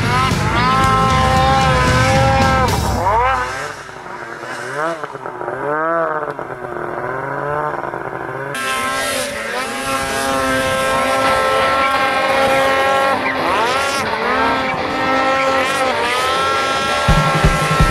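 Snowmobile engine revving hard, its pitch rising and falling again and again as the throttle is worked through deep powder. A regular low beat comes in near the end.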